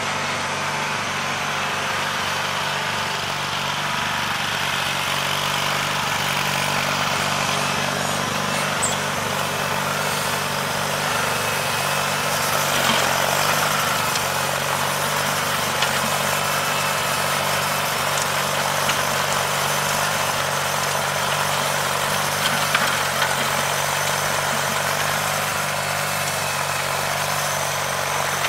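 John Deere 316 garden tractor's Onan B43 twin-cylinder engine running steadily under load while it drives a rear-mounted hydraulic rototiller through the soil.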